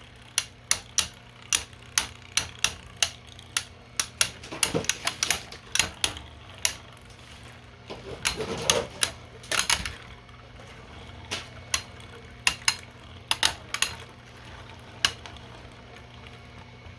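3D-printed plastic Beyblade spinning tops battling in a stadium: irregular sharp clacks as they strike each other, with quick flurries of hits about five, nine and thirteen seconds in.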